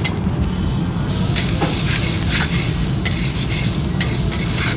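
Food sizzling on a teppanyaki iron griddle, the sizzle growing louder about a second in, with sharp clicks and scrapes of metal spatulas against the hot plate.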